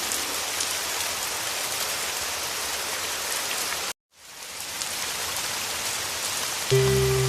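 Heavy rain falling steadily. About four seconds in it cuts out for a moment and fades back in. Near the end, music with low held notes comes in over the rain.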